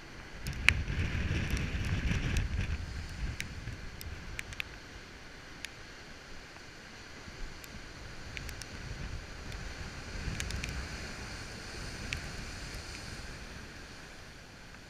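Heavy storm surf breaking on a rocky shore, a deep rumble that surges about a second in and again after about ten seconds, under steady wind buffeting the microphone. Scattered sharp clicks run through it.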